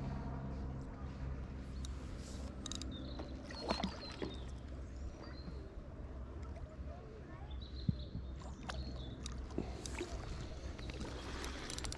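Water splashing and sloshing as a hooked carp is played near the landing net, with a few sharp knocks about four and eight seconds in, over a steady low hum.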